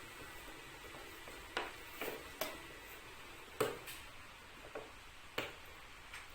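Toy box packaging being handled and opened by hand: about six scattered sharp taps and clicks of cardboard and plastic, the loudest about halfway through.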